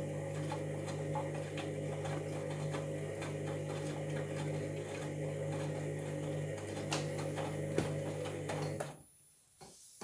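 Washing machine motor turning the drum: a steady hum with scattered light clicks and knocks, which stops abruptly about nine seconds in as the drum pauses.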